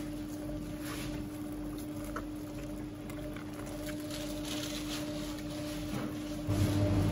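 Steady machine hum with a few faint clicks and light knocks; near the end a louder, deeper hum starts up.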